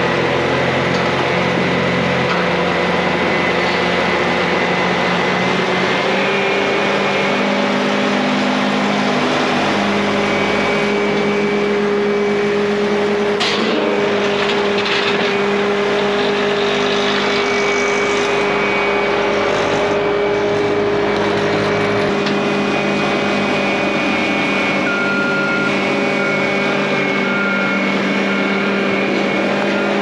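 Bobcat skid-steer loader's diesel engine running steadily under throttle, its pitch shifting a few times as it works, with a couple of sharp knocks about halfway through.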